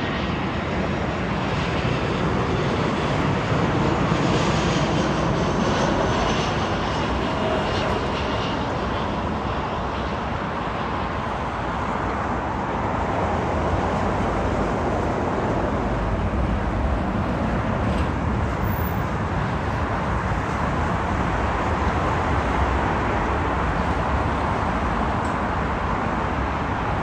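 Airliner engines running: a steady, rushing aircraft engine noise that swells slightly a few seconds in.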